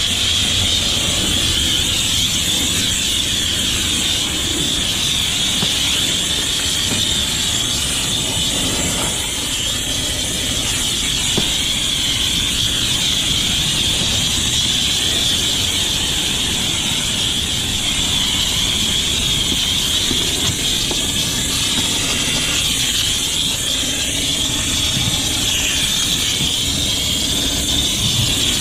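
High-pressure water spraying steadily from a car-wash wand onto a car's engine bay: a constant, even hiss.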